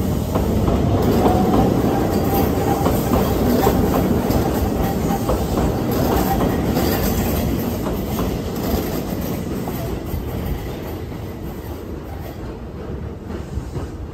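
A Keihan 800 series electric train moving away over points, its wheels clacking on the rail joints and crossings, with a faint wheel squeal in the first few seconds. The sound slowly fades over the second half.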